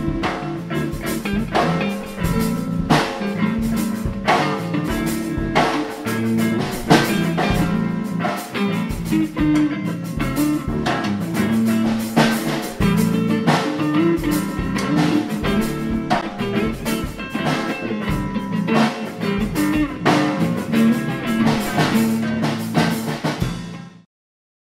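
Rock band music: electric guitar playing over a drum kit with a steady beat. It cuts off suddenly about a second before the end.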